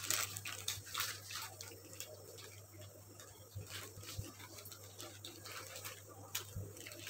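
Baking paper being peeled slowly off the underside of a sponge cake: faint, irregular crackling and rustling of the paper, over a steady low hum.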